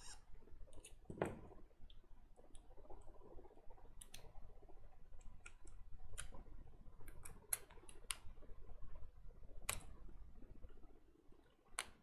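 Scattered small sharp clicks and taps of hand tools against a PC power-supply circuit board while a component is being removed, over faint handling rustle.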